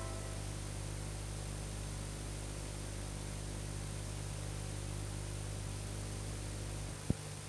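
Steady mains hum with a faint hiss from an old videotape recording, no programme sound. A single click comes near the end, after which the hum is weaker.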